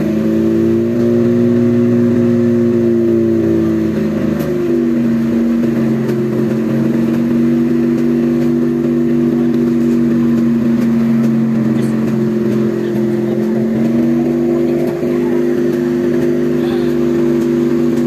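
Fire truck engine running at a steady high speed, its pitch easing down slightly about four and a half seconds in and then holding.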